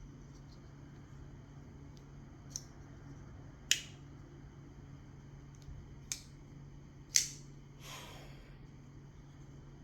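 Metal Zippo lighter lid clicking open and snapping shut, four sharp clicks spread over several seconds, the second and fourth the loudest, followed about eight seconds in by a brief rushing hiss.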